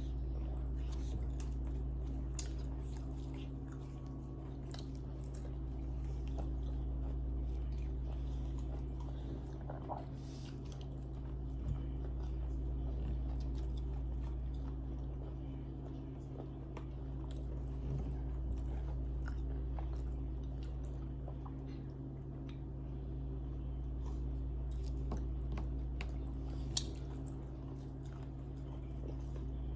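A steady low hum that swells and fades about every six seconds, with faint scattered clicks and the mouth sounds of someone chewing.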